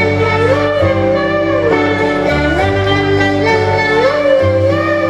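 Background music: a slow melody of long, gliding notes over held bass notes, at a steady level.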